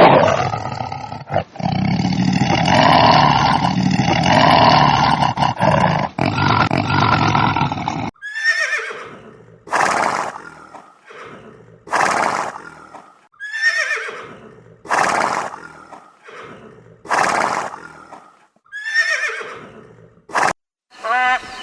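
Animal calls: a dense, rough calling for about eight seconds, then a run of short calls falling in pitch, each followed by a breathy rush, about once a second, ending with a sharp click.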